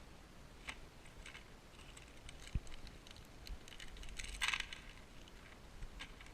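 Light clicks and rattles of small screws and plastic mounting parts being handled, with a denser burst of rattling about four and a half seconds in and one dull knock near the middle.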